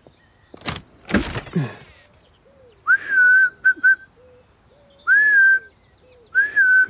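A back door clicks and swings open, then a man whistles to call a cat: three whistled calls, each a note that swoops up and holds, the first followed by two short pips.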